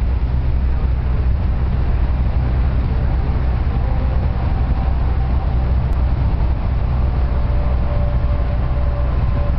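Steady low rumble of a moving tour bus: engine and road noise, even and unbroken.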